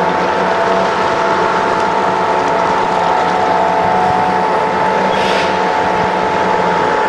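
Convoy of eight-wheeled armoured vehicles driving past, a steady, loud drone of engines and tyre hum with a constant whine. There is a short hiss about five seconds in.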